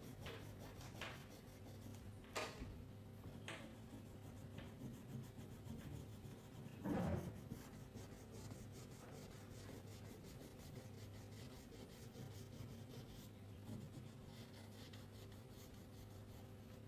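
Faint scratching of a crayon rubbed back and forth on paper as an area is colored in, with a few light clicks and one louder low thump about seven seconds in, over a steady low hum.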